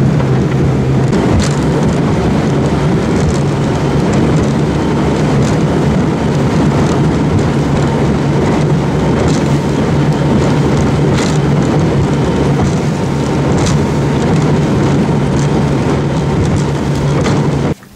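Boat motor running steadily at speed across choppy water, a constant low drone under loud wind and water rush, with a few short knocks from the hull; it cuts off suddenly near the end.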